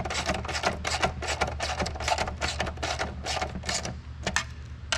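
Ratchet wrench clicking rapidly as it tightens lock nuts onto mounting studs, the clicks thinning out near the end, over a steady low hum.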